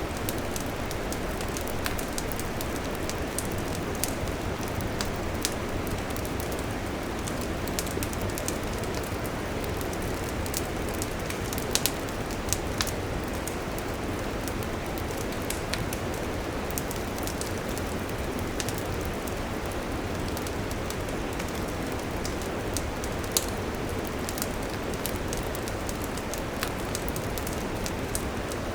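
Wood campfire burning, a steady hiss dotted with frequent sharp crackles and pops, a few of them louder, about twelve seconds in and again near twenty-three seconds.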